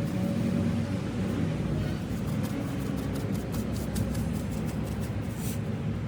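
An engine running steadily with a low hum and faint ticking.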